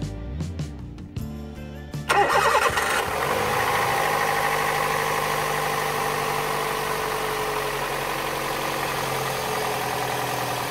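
Toyota 1NZ-FE 1.5-litre inline-four engine starting about two seconds in, then settling into a steady fast idle whose pitch eases down a little. This is its first start after a thermostat replacement and coolant refill, run to purge air from the cooling system. Background guitar music plays before the engine starts.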